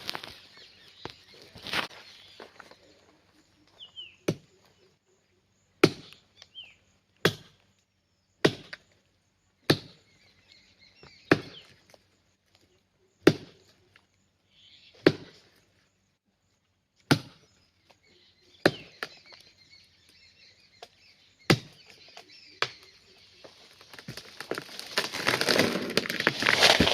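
Axe chopping into a tree trunk: about a dozen single sharp blows, roughly one every second and a half. Near the end comes a long, loud crash of branches as the tree falls.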